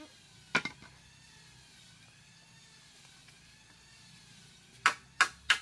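Sharp blows of a hand tool striking wood: two close together about half a second in, then three in quick succession near the end.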